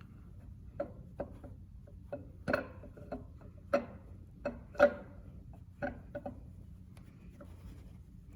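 Irregular metallic clinks and knocks, about a dozen, unevenly spaced, as the camshaft is twisted and eased out of a 6.0 LQ4 V8 engine block.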